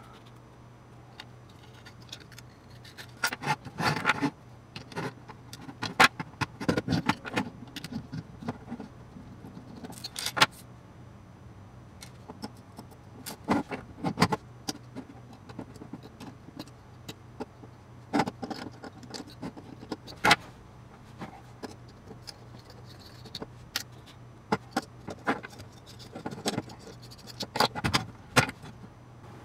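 Aluminium plates and small gear assemblies clinking and knocking as they are handled and set down on a wooden desk: irregular sharp clicks and taps. A faint steady low hum runs underneath.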